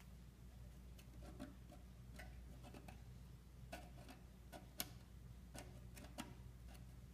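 Faint, irregular small clicks and ticks of a palette knife tip working under loose brass marquetry elements on a box lid, the sharpest about five seconds in, over a low steady hum.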